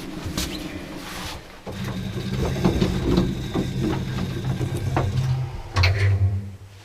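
Lift running as the car goes down: a steady low motor hum with scattered mechanical clicks. Just before six seconds in, the hum changes to a lower tone, then stops shortly before the end.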